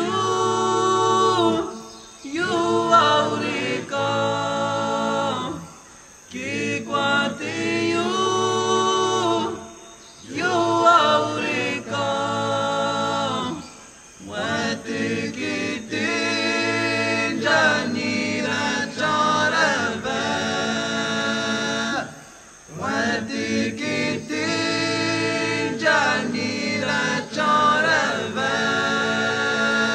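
A cappella vocal group singing unaccompanied in close harmony, in short phrases separated by brief pauses.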